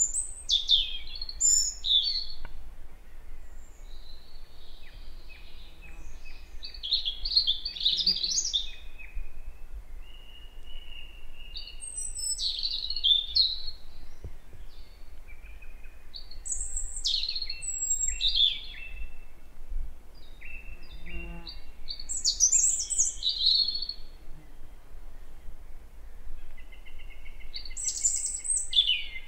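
European robin singing: short, high, quickly varied warbling phrases every few seconds with pauses between them, over a low steady rumble.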